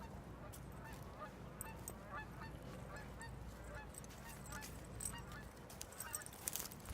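Faint honking of geese, many short calls one after another, over a steady low rumble. A few sharp clicks come in the later seconds.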